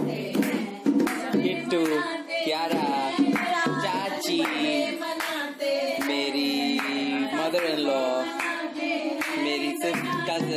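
A small group of mostly women's voices singing a devotional bhajan together, with hand-clapping and dholak drum strokes keeping time.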